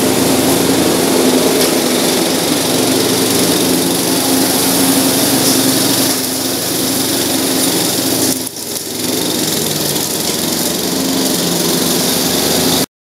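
Riding lawn mower's small engine running steadily while cutting grass, with a brief dip in level about eight and a half seconds in.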